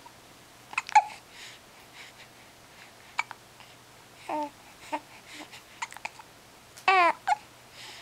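Six-week-old baby hiccuping: short sharp hics at irregular intervals, about one a second, two of them with a brief squeaky voiced sound. The loudest come about a second in and near the end.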